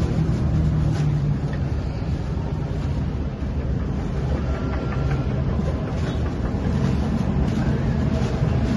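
Steady low rumble of passing street traffic.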